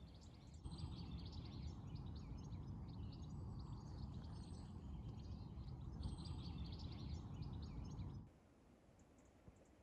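Birds chirping and singing over a low steady rumble. Both cut off abruptly about eight seconds in.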